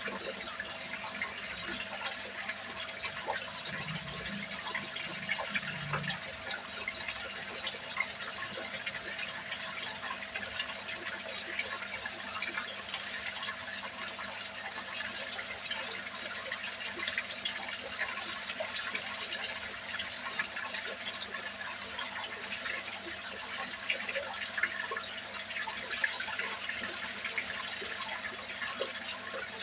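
Water pouring steadily from an inlet pipe into a small tarpaulin fish pond, a continuous splashing on the surface, with a faint steady hum underneath.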